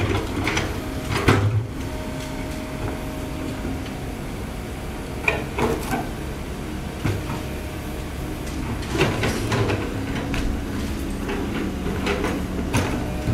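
Komatsu PC130 hydraulic excavator's diesel engine running steadily under load while its steel bucket scrapes and knocks against soil and broken concrete with rebar, giving several clanks and scrapes a few seconds apart, the loudest about a second in.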